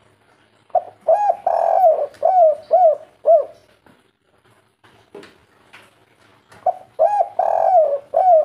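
Spotted dove (derkuku) cooing its 'kuk 3' song: a phrase of a couple of short coos, a longer drawn coo, then three closing coos. A second phrase begins about seven seconds in.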